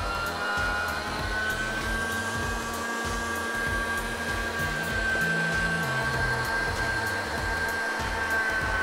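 Electric meat grinder running steadily with a continuous motor whine as it grinds chilled pork through a fine plate.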